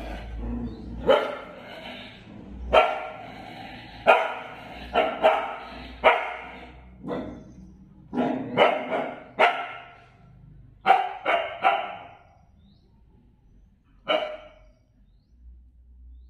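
A dog barks repeatedly in short, sharp barks, mostly in quick clusters of two to four, at its own reflection in a mirror. The barking stops about two seconds before the end.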